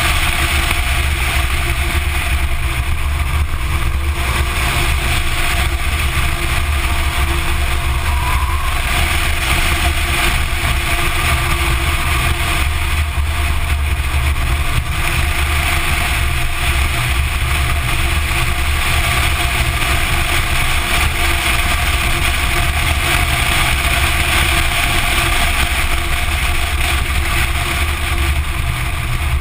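Porsche 944 Turbo driving at speed, heard from a camera mounted outside on its front wing: heavy wind rumble on the microphone mixed with the turbocharged four-cylinder's engine note and tyre noise, at a fairly even level with no sharp changes.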